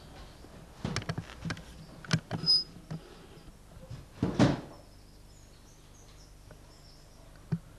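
Scattered light knocks and clicks of handling, with one louder, longer knock about four and a half seconds in and a single click near the end, over a low steady hum.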